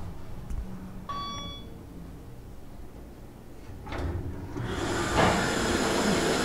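KONE elevator hall chime dings once as the up-direction lantern lights. About four seconds in, the traction passenger elevator's doors slide open with a rising rumble and hiss.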